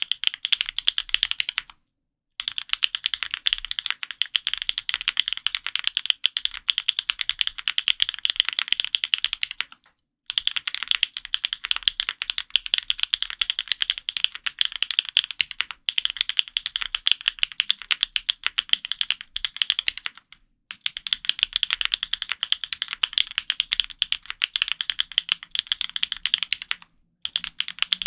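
Fast, continuous typing on an F1-8X custom mechanical keyboard fitted with lubed Gateron Raw switches on an aluminium plate, with GMK keycaps and foam-dampened case: a dense run of keystroke clacks, stopping briefly four times.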